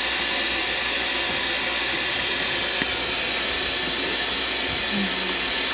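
A steady, even hiss, with a brief faint tone about five seconds in.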